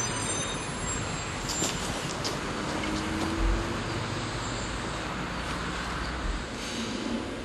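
Eizan Electric Railway single-car electric train running toward the listener along the track: a steady running noise with a few light clicks.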